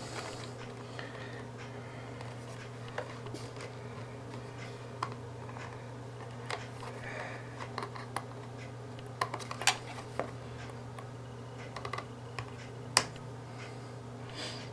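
Small plastic clicks and scratches as a pointed pick is worked into the seams of a Sunvell T95k Pro TV box's plastic case, with a couple of sharper clicks, the loudest about ten and thirteen seconds in. A steady low hum runs underneath.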